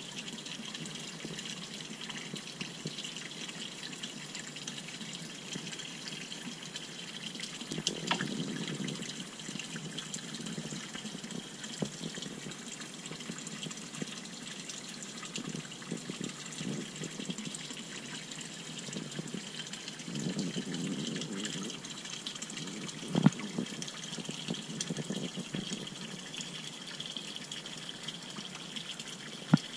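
Water pouring from a pipe into a pond, a steady splashing stream. Two sharp knocks stand out over it, about two-thirds of the way through and again near the end.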